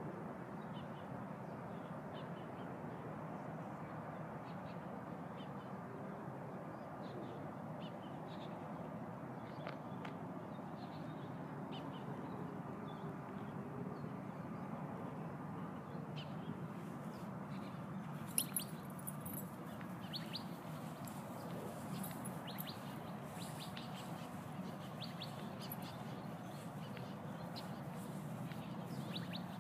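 Small birds chirping in short, scattered calls over steady outdoor background noise, with a few sharp clicks and a light jingle a little past halfway.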